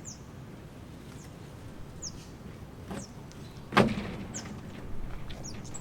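A single sharp knock with a short ring a little before four seconds in, over a steady low rumble, with short high chirps about once a second.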